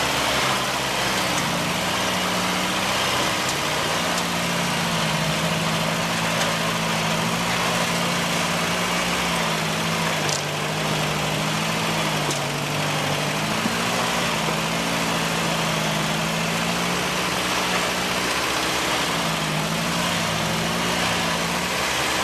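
Off-road vehicle engine running at low revs, its pitch stepping up and down every few seconds with the throttle. There is a sharp click about ten seconds in.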